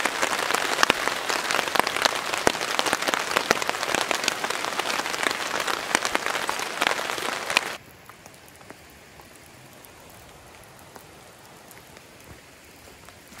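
Steady rain with many close, sharp drop hits in a dense patter. It cuts off abruptly about eight seconds in, leaving only a faint hiss.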